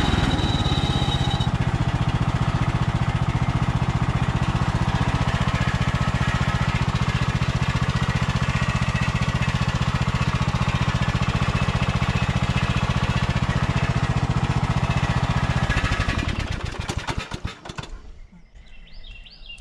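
Kohler Courage 20 hp single-cylinder engine on a riding lawn tractor running steadily. About a second in, a brief high screech sounds from the electric PTO clutch as it is switched off, from surface rust on a clutch that hasn't been used in a while. About three-quarters through, the engine shuts off and winds down.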